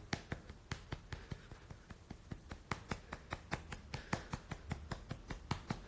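Light, sharp clicks or taps, several a second and irregularly spaced, over a faint low hum.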